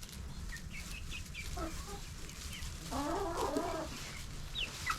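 Domestic hens clucking, with a louder run of clucks about three seconds in and short high chirps scattered throughout.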